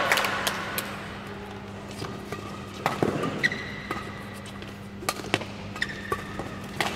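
Badminton rally: sharp cracks of rackets striking the shuttlecock, spaced roughly a second or two apart, with short squeaks of shoes on the court floor. Applause from the previous point dies away in the first second.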